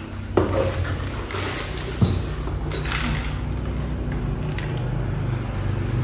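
Small cardboard medicine boxes being handled and unpacked from a shipping carton, with rustling and two sharp knocks of boxes set down on a tile floor, about half a second and two seconds in. A steady low hum runs underneath.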